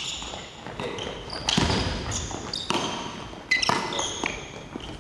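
A basketball dribbled on a gym floor, bouncing every second or so, with short high squeaks of sneakers on the court.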